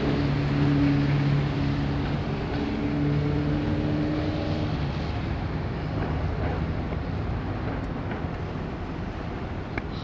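Motor vehicle engine running with a steady low hum that shifts pitch once and fades away about halfway through, leaving general street and traffic noise.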